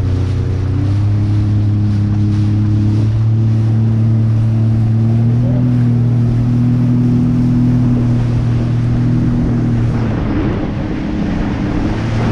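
Jet ski engine running under throttle as it takes off to get up on the plane. Its pitch steps up about a second in and again around the middle, then eases off briefly near the end, with wind and water noise over it.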